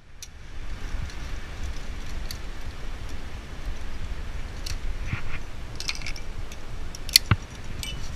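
Metal climbing hardware on a harness, carabiners and cams, clinking lightly now and then as the climber moves, a handful of short clinks over a steady low rumble.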